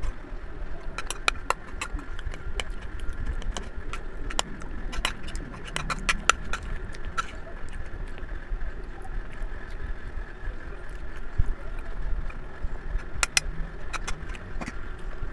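A metal utensil clinking and scraping against a ceramic bowl of spaghetti, with chewing, heard as scattered sharp clicks that come in small clusters, over a faint steady hum.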